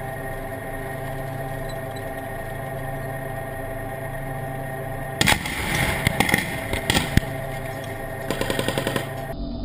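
A tank's engine running steadily, heard from a camera on the tank itself. About five seconds in, a loud blast close to the tank kicks up dust, followed by scattered bangs and clatter for a couple of seconds, and near the end comes a rapid burst of gunfire.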